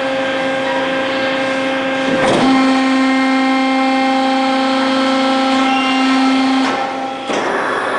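NC XY log swing charger for a veneer lathe running, its drives giving a steady whining hum. The hum steps up after a short rush of noise about two seconds in and drops back near the end.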